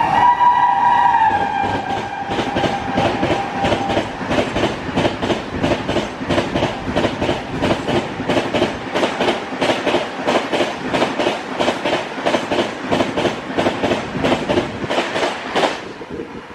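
An Indian Railways express train passing through a station at full speed. Its locomotive horn sounds a held multi-tone blast at the start and stops within the first couple of seconds. Then the wheels give a rapid, even clickety-clack over the rail joints as the coaches rush past, stopping abruptly near the end as the last coach goes by.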